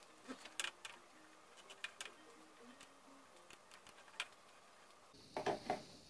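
Faint, scattered single clicks of a computer mouse, about seven spread over several seconds, over quiet room tone; a man's voice starts near the end.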